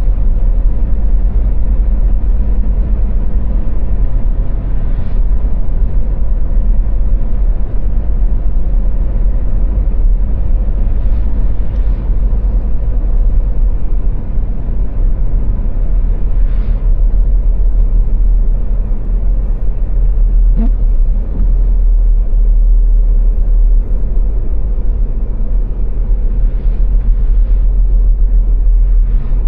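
Car driving at motorway speed on the Autobahn: a steady, deep rumble of road and engine noise, with a few brief swells along the way.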